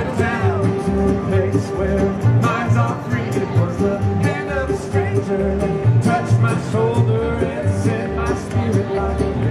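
Bluegrass band playing live: fiddle, mandolin, five-string banjo, acoustic guitar and upright bass, the bass keeping a steady beat under wavering melody lines.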